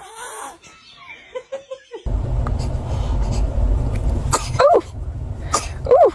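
Baby sneezing: two short, sudden sneezes, each ending in a brief falling squeak of voice, in the second half, over a steady low rumble. Before them, faint scattered small sounds.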